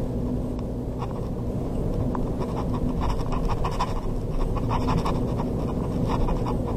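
Steady low rumble of a car in motion, heard from inside the cabin: tyre and engine noise on the highway. Faint quick ticks or rattles come through for a few seconds in the middle.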